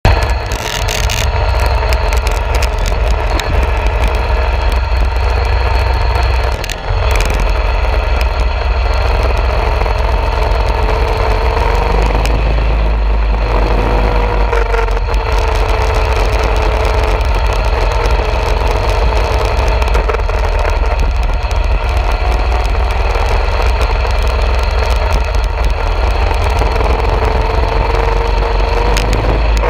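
Coleman mini bike's small single-cylinder engine running as it is ridden along, its pitch rising and falling a little with speed, with a brief drop in level about seven seconds in. Heavy wind rumble on the handlebar-mounted camera's microphone runs underneath.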